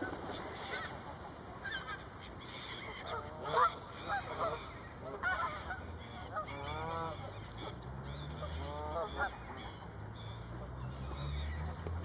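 Canada geese honking: a string of short calls, some coming in quick runs. A low hum underneath rises in pitch in the second half.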